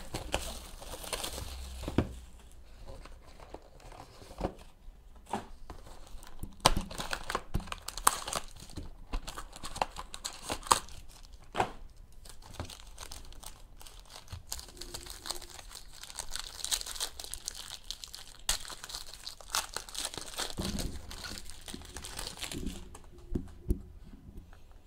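Cellophane shrink-wrap being torn and crinkled off a trading-card box, then the box opened and the cards handled: irregular rustling with scattered sharp clicks.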